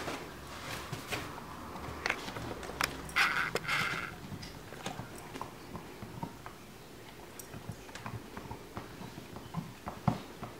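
A dog chewing and gnawing a rubber ball toy, with scattered clicks and knocks of teeth and paws on the toy. There are two short, louder raspy sounds about three seconds in.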